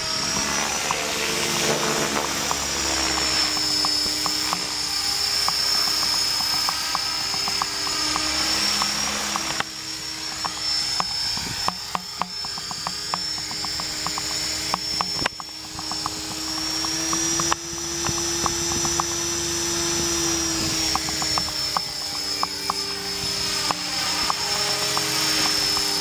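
Radio-controlled model helicopter in flight: a steady high whine over a lower hum, both drifting slightly up and down in pitch.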